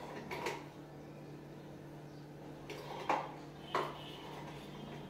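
Metal kitchenware clinking a few times as a saucepan of tea is handled on the stove: one clink about half a second in, then three more close together a little past halfway. A steady low hum runs underneath.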